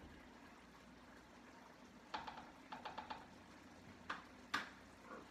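A cooking utensil clicking and clacking against a pan on the stove: a quick run of light clicks about two to three seconds in, then a few sharper clacks, the loudest about four and a half seconds in, over a faint steady hum.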